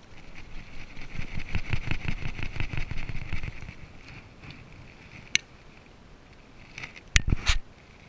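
A varroa mite alcohol-wash cup being shaken in gloved hands: a rhythmic shaking and rustling, about four shakes a second, that stops after about three and a half seconds. A sharp click follows, and two or three knocks from handling the cup near the end.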